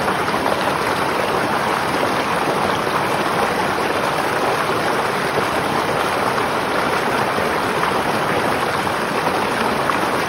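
River water flowing steadily, an even unbroken rush of water with no breaks.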